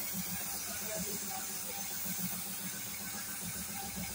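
Air spray gun hissing steadily as it sprays paint onto a car door, with a low, fast pulsing hum underneath.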